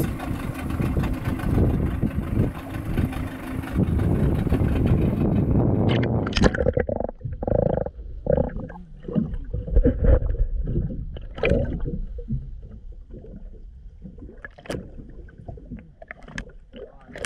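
Wind and sea noise on the microphone in a small open boat while the fish-pot line is hauled. About six seconds in this gives way to muffled underwater sound: gurgles and a few sharp knocks, growing quieter toward the end.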